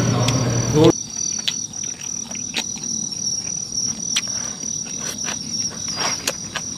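Crickets chirping steadily in grass at night, with scattered light clicks of chopsticks and dishes. A low humming sound cuts off abruptly about a second in.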